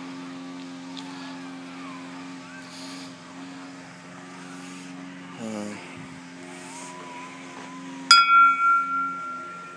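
A metal bell with a rope pull, struck once about eight seconds in, ringing in several tones and fading over about a second and a half. A steady low hum runs underneath.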